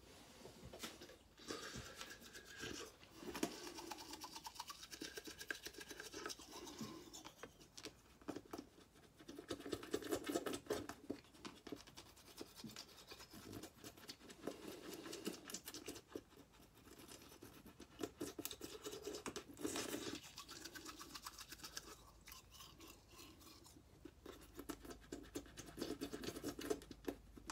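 Manual toothbrush faintly scrubbing teeth in rapid back-and-forth strokes, coming in spells of a few seconds with short pauses between them.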